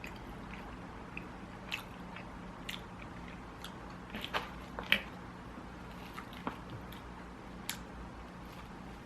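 Close-miked chewing: soft, wet mouth clicks and smacks scattered through, one louder smack about five seconds in, over a faint steady hum.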